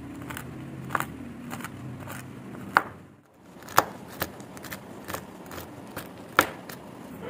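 Kitchen knife chopping shelled pumpkin seeds on a wooden cutting board: irregular sharp knocks of the blade striking the board, about a second or two apart, with softer taps between.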